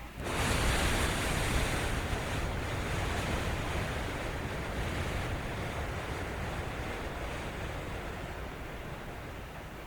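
One long, slow deep breath taken close to a binaural microphone: a breathy rush that starts abruptly and slowly fades away over about nine seconds.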